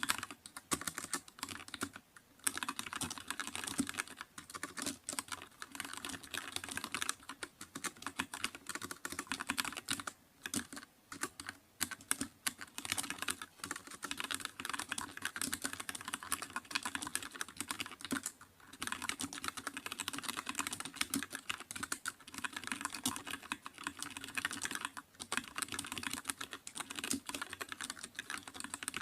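Continuous fast typing on a computer keyboard: a dense stream of key clicks with brief pauses a few times.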